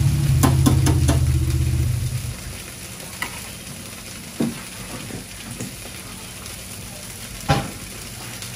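A motor vehicle's engine running close by, cutting out or fading away about two seconds in, with a few clicks over it. After that comes a quieter steady hiss with a few scattered knocks.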